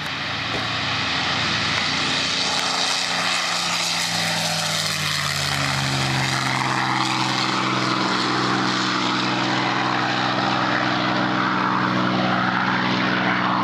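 P-51 Mustang's V-12 piston engine running hard on a low pass, getting louder over the first couple of seconds, then dropping in pitch as the fighter goes by near the middle before carrying on steadily as it climbs away.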